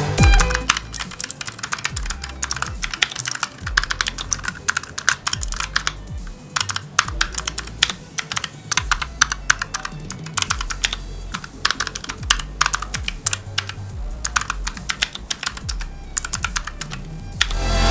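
Rapid, irregular typing on a Razer Huntsman Opto-Mechanical keyboard, its clicky optical switches clacking with each keystroke, over quiet electronic background music.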